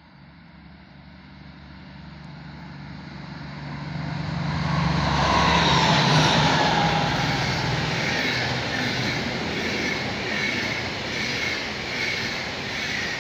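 A passenger train headed by two DB class 218 diesel locomotives approaching and passing close by: the diesel engines' drone swells steadily and is loudest about five to six seconds in as the locomotives go past, then gives way to the rumble and ringing clatter of the Intercity coaches' wheels rolling by.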